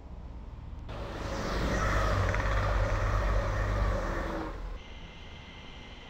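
Passenger train passing at speed: a swelling rush of wheel and track noise over a deep rumble, loudest for a couple of seconds in the middle, then falling away.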